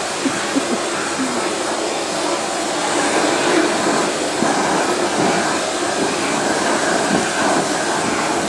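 Vacuum cleaner running steadily, its brush nozzle drawn along a cat's fur.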